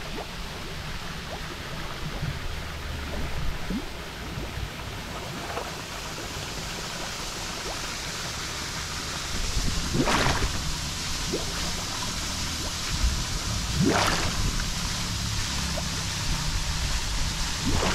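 Flowing river water rushing steadily, with two brief louder splashes or gusts about ten and fourteen seconds in.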